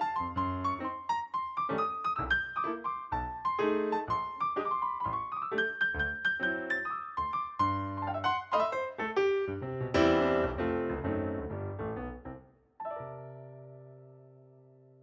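Background piano music: a quick melody of separate notes, ending on a held chord that fades out near the end.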